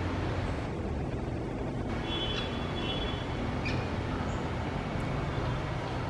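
Steady low rumbling background noise, with a few faint, short, high chirps about two seconds in and a couple of faint ticks later.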